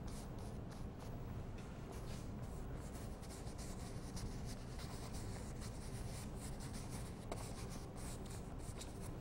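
Bristle paintbrush scrubbing oil paint onto a stretched canvas: faint, quick, scratchy strokes one after another, over a steady low hum.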